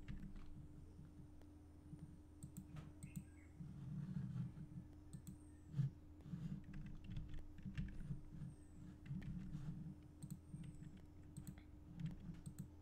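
Computer keyboard keystrokes and mouse clicks, scattered and irregular, over a low steady electrical hum.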